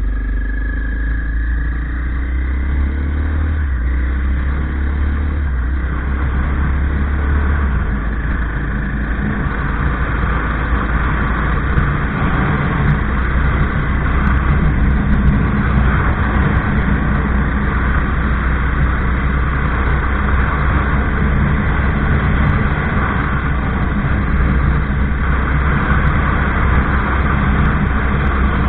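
Motorcycle engine pulling away and picking up speed through the first few seconds, then running steadily at cruising speed, with wind rushing over the microphone.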